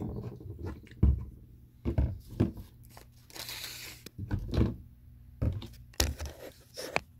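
Handling noise of a phone being set up to stand on its own: a series of knocks and bumps as it is moved and propped, with a rustling scrape about three and a half seconds in.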